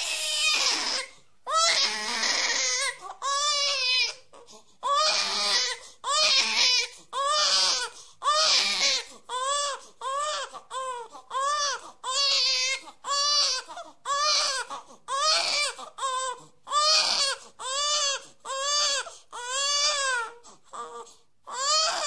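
A baby crying hard: a steady run of short wails, about one a second, each rising and falling in pitch, with quick breaths between them.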